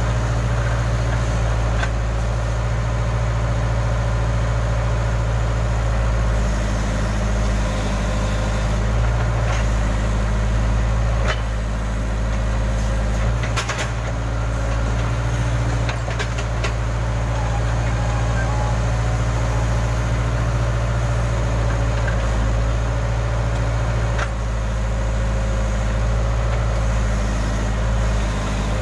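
Case backhoe loader's diesel engine running steadily, with a few sharp metallic knocks.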